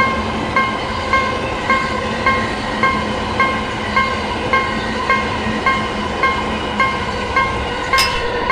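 Japanese level-crossing warning bell ringing evenly, a little under two strikes a second, over the steady rumble of a train passing through the crossing. A sharp click comes near the end.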